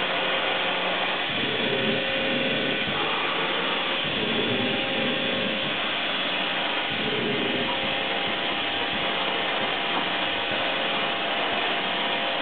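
Sharp SV-2412 CNC vertical machining center's spindle running steadily at about 5,000 RPM, a constant whir with a few steady tones, as the head moves the tool over the workpiece. Very quiet running for a small machine, a sign of a spindle in good order.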